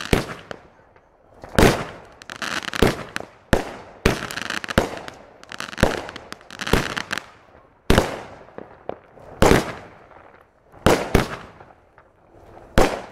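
Fireworks going off: a dozen or so sharp bangs at uneven gaps of about a second, each trailing off in a short echo.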